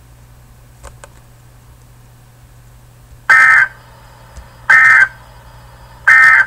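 Emergency Alert System end-of-message signal: three short, loud bursts of digital data tones, about a second and a half apart, starting a little past three seconds in, marking the end of the alert. Before them, a faint steady hum and two small clicks about a second in.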